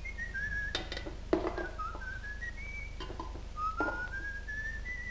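A man whistling a wandering tune, broken by several short knocks and clinks of metal tankards being picked up and set down on a table, the loudest about a second and a half in.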